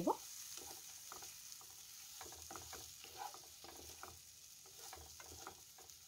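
A spatula stirring raw gobindobhog rice into fried potatoes and spice paste in a frying pan: irregular, faint scrapes and rustles of the grains against the pan, over a light sizzle of oil.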